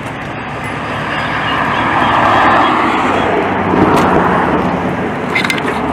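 A road vehicle driving past: a rush of tyre and engine noise that swells, peaks midway and fades.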